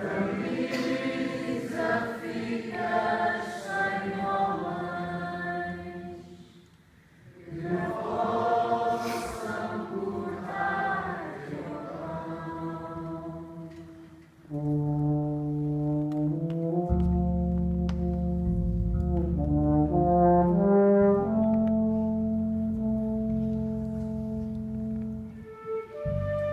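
A group of voices sings two phrases of the song over soft accompaniment from a wind band, with a short break between them. About halfway through, the singing gives way to the wind band alone playing slow, held brass chords over deep bass notes.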